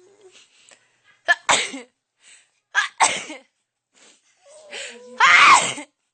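A person sneezing three times in quick succession, each sneeze a short sharp burst. The third, near the end, is the loudest and longest and comes after a drawn-in voiced breath.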